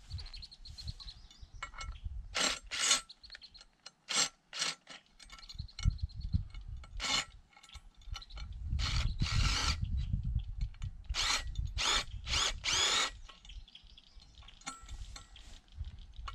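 Hands working the hanging hardware of a steel target on a wooden post: an irregular series of short scrapes and rattles of chain and metal against the wood, with one longer scrape about two-thirds of the way through.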